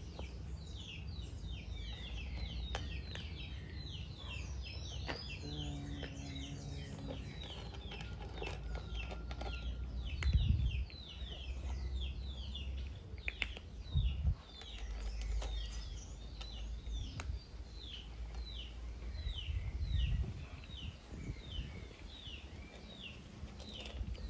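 Birds chirping over and over outdoors, quick short descending chirps a few per second, over a steady low rumble, with a few dull low thumps.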